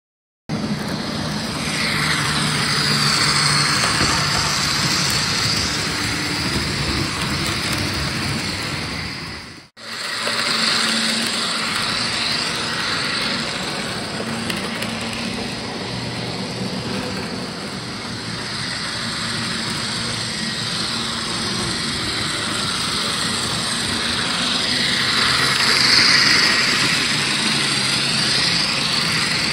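N-scale model freight train running along the track: the locomotive's small electric motor hums while the wheels rattle over the rails, swelling louder twice as the train passes close. The sound drops out for an instant about ten seconds in, then the running picks up again.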